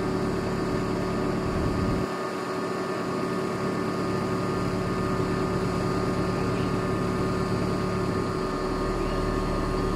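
An engine running steadily, its low rumble dropping away about two seconds in and coming back near the end.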